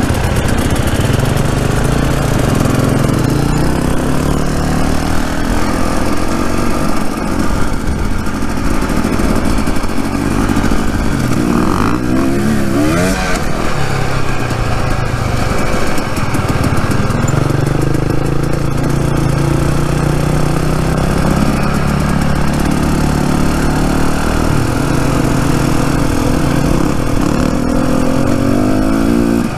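Dirt bike engine running on a trail ride, its pitch rising and falling with throttle and gear changes, with a flurry of quick revs about twelve seconds in.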